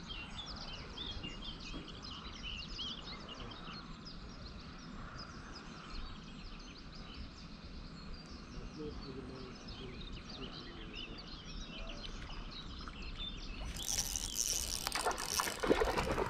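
Small birds chirping over a steady outdoor background. Near the end, a louder burst of rustling and knocking.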